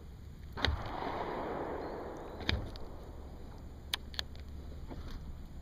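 Water splashing for a couple of seconds and a few sharp knocks against the kayak as a small bass is landed alongside. The splashing starts about half a second in; the knocks come singly, two of them close together near the end.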